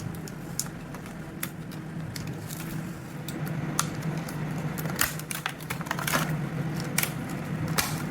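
Irregular clicks and taps of a wireless mouse's box and packaging being handled and opened, more frequent in the second half, over a steady low hum.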